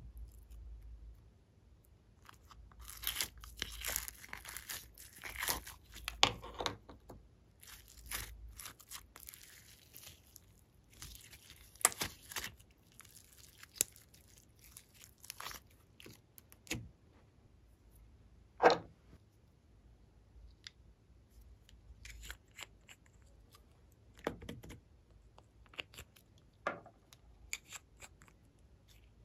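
Sticky glitter slime being pulled, stretched and squished by hand, making wet crackling and tearing sounds with small pops. In the second half it turns to sparse clicks and taps, with one sharp click the loudest.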